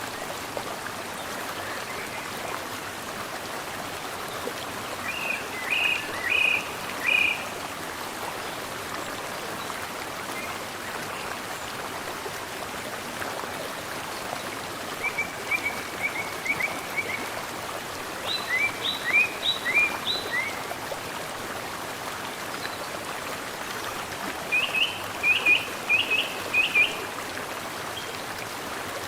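Mountain stream flowing steadily, with songbirds singing short phrases of quick repeated high notes four times over it.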